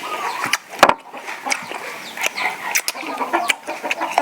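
Chickens clucking, mixed with many sharp clicks and one louder knock about a second in.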